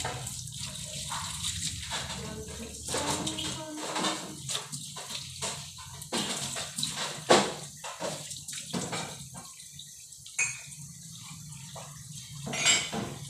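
Water splashing and pouring in irregular spurts, with a louder splash about seven seconds in.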